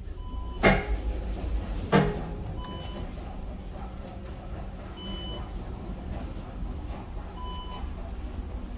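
2010 KONE MonoSpace traction elevator car running with a steady low hum. Two sharp clicks come about half a second in and again at two seconds, and a short electronic beep repeats about every two and a half seconds.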